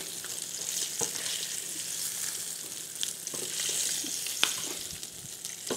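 Sardines frying in a pan of hot oil: a steady high sizzle, with a few sharp clicks as metal tongs lift the fried fish out.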